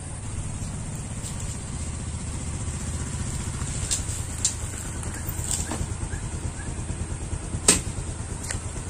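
Steady low rumble of an engine running, with a few sharp clicks, the loudest near the end.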